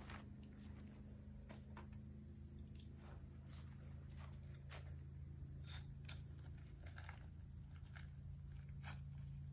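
Faint, scattered small clicks and rustles of gear being handled, over a steady low background hum.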